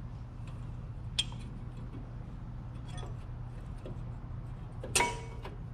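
A few light metallic clicks, then one louder clink with a brief metallic ring about five seconds in, as metal brake parts and tools are handled. A steady low hum runs underneath.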